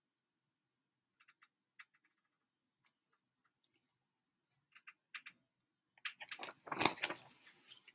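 Pages of a large picture book being handled and turned: a few faint paper clicks and ticks, then a louder crackly rustle of paper about six seconds in.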